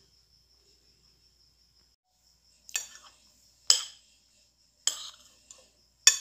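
Metal spoon clinking against a plate four times, about a second apart, as food is scooped up while eating. A faint, steady high trill runs underneath.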